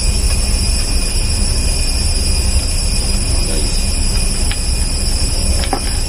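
Steady low machinery drone with several constant high-pitched whines over it, the running machinery of a ship. A couple of faint metallic clicks come from the steel wire strands being handled, about two-thirds through and near the end.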